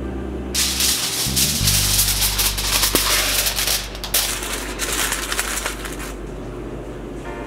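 A sheet of aluminium foil crinkling as hands scrunch and shape it into a tent, starting about half a second in and stopping about six seconds in. Background music plays underneath.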